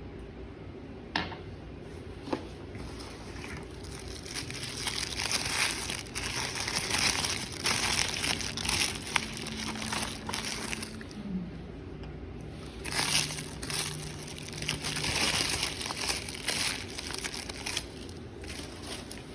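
Crinkling of packaging being handled and unwrapped, in irregular bursts. Two sharp clicks come before it.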